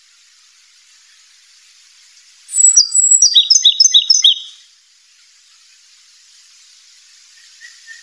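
A small songbird singing one short phrase of rapid, high chirps, repeated notes at about four a second, for about two seconds a couple of seconds in, over a steady hiss.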